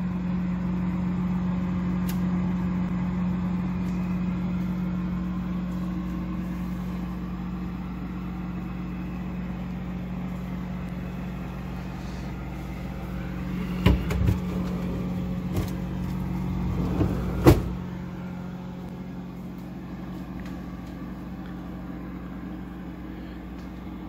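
Steady low hum with a pitched drone from the Frigidaire Professional upright freezer running, an appliance pair the owner finds pretty noisy. Two sharp knocks come about halfway through and a few seconds later, and the hum is a little quieter after the second.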